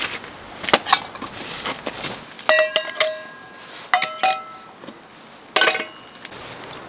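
Stainless steel camping cups clinking against each other and the metal hanging bar as they are hooked on, each clink ringing briefly, about five times in all, after a few dull knocks of gear being handled about a second in.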